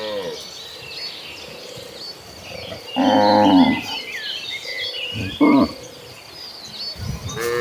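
Cattle mooing: a loud moo about three seconds in, a short one about two seconds later, and another starting near the end, with birds chirping faintly between them.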